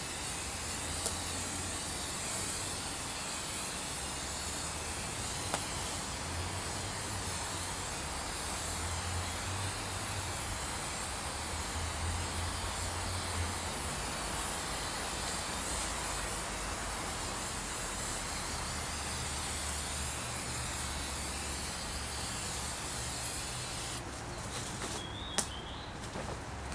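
Steady hissing noise, like a spray, that eases off about 24 seconds in, followed by a couple of light clicks.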